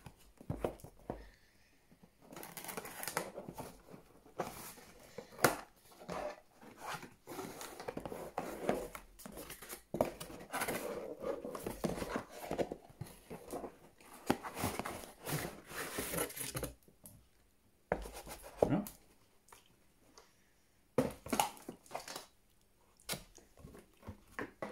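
A cardboard product box being opened by hand: plastic wrap crinkling and tearing, cardboard rustling and scraping, with many sharp clicks and taps. The rustling is dense for most of the stretch and gives way to a few scattered knocks near the end as the lid comes off and the molded pulp insert is handled.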